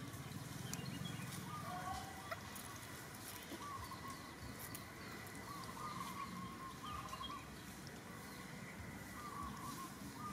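Faint, short wavering calls from a bird or small animal, repeating every second or two, with a few faint clicks between them.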